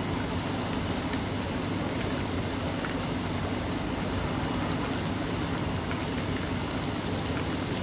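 Pot of curry broth with oyster mushrooms at a full boil, bubbling with a steady rushing hiss.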